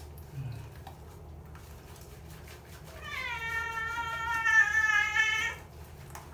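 Domestic cat giving one long, drawn-out meow of about two and a half seconds, starting about three seconds in, while it is being bathed: a cat frightened of the water.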